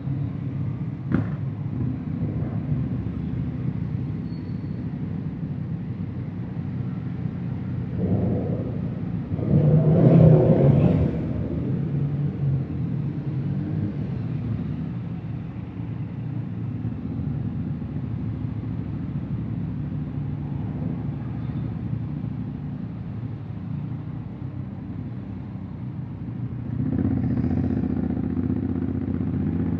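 Honda X-ADV 750's parallel-twin engine running, with two short revs about eight and ten seconds in, and running louder from about 27 seconds in.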